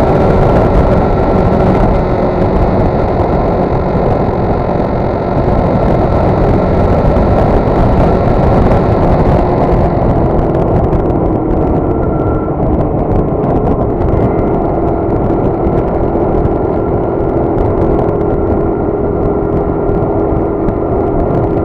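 Wind rushing over the camera on a moving motorcycle, with the bike's engine running steadily underneath. About halfway through, the rush eases and the engine note settles slightly lower as the motorcycle slows.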